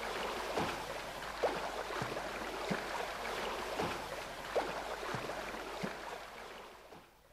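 Water sloshing and splashing: soft splashes come about once a second over a steady wash, and the sound fades away near the end.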